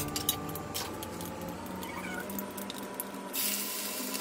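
Hot oil in a wok crackling with scattered sharp pops. About three seconds in, a steady hissing sizzle starts suddenly as fenugreek seeds hit the oil and fry.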